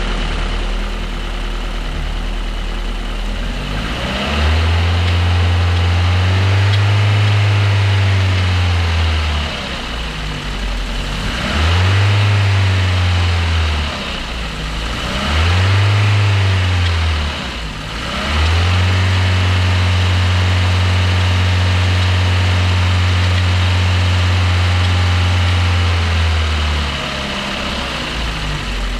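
Freshly rebuilt Toyota 1ZZ-FE 1.8-litre inline-four idling and being gently revved four times, the last rev held for about eight seconds, each time falling back to idle. The owner hears an intermittent metallic scraping when revving and guesses it may be new piston rings seating.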